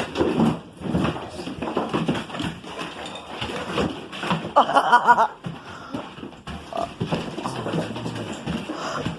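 Dogs scuffling after a rat, with irregular knocks and scrabbling throughout. A short, loud, high-pitched squeal comes about four and a half seconds in.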